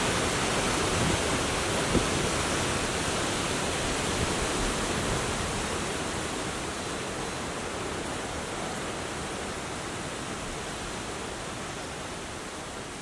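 Strong wind making a steady rushing roar that slowly eases off, with no sharp gusts.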